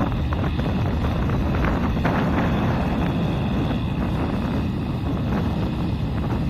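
Kubota M6040SU tractor's diesel engine running steadily under load while it pulls a rotary tiller through paddy mud, with wind buffeting the microphone.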